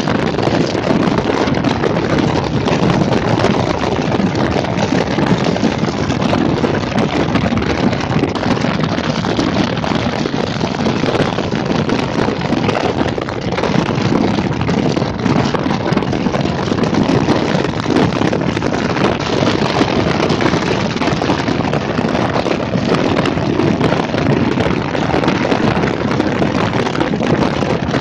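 Steady wind rushing over the microphone, mixed with the road noise of a vehicle in motion, unbroken throughout.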